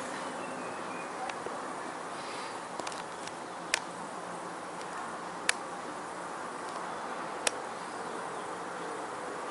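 Steady background hiss, with three sharp clicks about two seconds apart.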